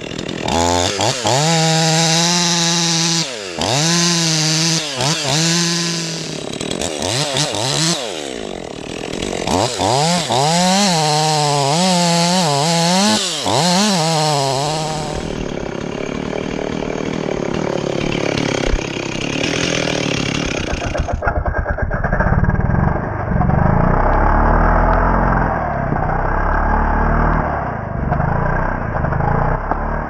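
Chainsaw revving up and down again and again, its pitch rising and falling, then running more steadily and, near the end, cutting into the base of a dead ash trunk.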